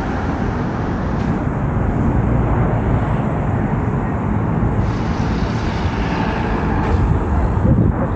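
Steady rumble of road traffic on the bridge lanes alongside.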